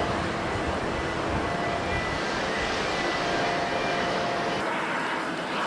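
Jet engine noise of a departing ANA Boeing 787-8, a steady rush with faint whining fan tones, mixed with gusty wind buffeting the microphone. The sound changes abruptly about four and a half seconds in.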